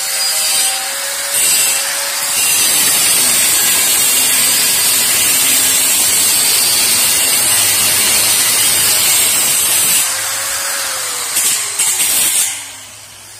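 A power tool's abrasive cutting disc cutting through a steel bar, trimming a welded gate stop to length. It starts suddenly at full loudness, runs steadily for about twelve seconds with a harsh high hiss, then falls in pitch and dies away near the end as the cut finishes.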